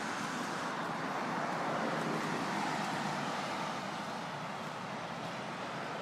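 Road traffic going by, a steady hiss of tyres and engines that eases off a little after the middle.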